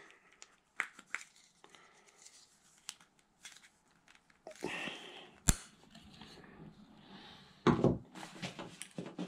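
Hands rummaging in a backpack and handling gear: scattered soft clicks and rustling, with one sharp click about five and a half seconds in.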